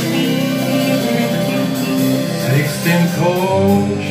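Blues band playing live, guitar to the fore, in a passage with no sung words.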